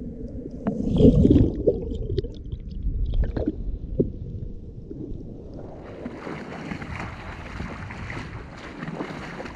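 Muffled underwater rumble and gurgling, with a few clicks and knocks, from a camera held under water in a shallow reef pool; it peaks about a second in. About five to six seconds in the camera comes up out of the water and the sound changes to a steady rushing hiss of open air, wind and surf.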